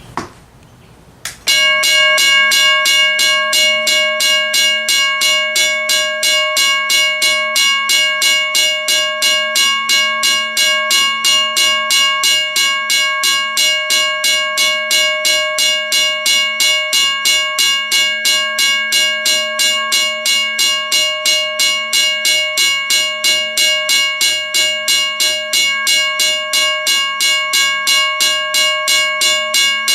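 WRRS 1203 mechanical railroad crossing bell ringing: a hammer strikes the gong in a rapid, even stream, with a steady clang of several ringing tones. It starts suddenly about a second and a half in, just after a click.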